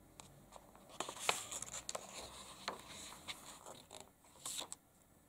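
A paperback picture book's page being turned and pressed flat by hand: soft paper rustling and scraping with scattered light ticks.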